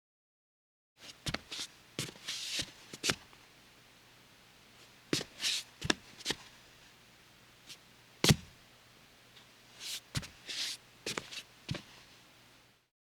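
A woman's bare feet stepping on a solid wooden floor: soft thuds with some skin scuffing, in irregular groups of steps with pauses between. The steps start about a second in, and one heavier step lands about eight seconds in.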